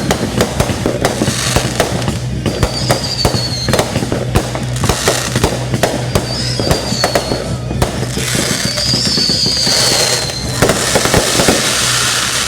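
Fireworks going off in quick succession, with many sharp bangs and crackles, several high, slightly falling whistles, and a louder crackling hiss near the end. Music plays underneath.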